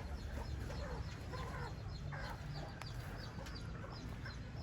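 Chickens clucking over a constant chorus of rapid, high-pitched peeping from young chicks.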